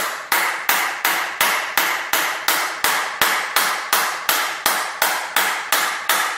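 Hammer striking the screen of an iPhone 5S fitted with a Neon Tuff impact-proof screen protector: about eighteen sharp strikes at an even pace of roughly three a second, each with a short ringing tail, in an impact test of the protector.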